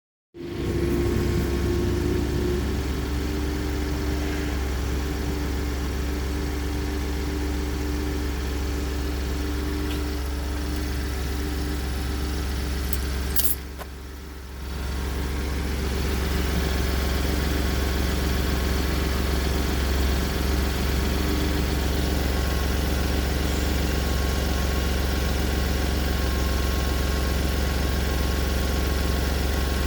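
Ford EcoBoost engine running steadily with a low drone and a steady hum on top, the noise its owner finds strange. About halfway through there is a click and the sound drops for a second or so, then comes back.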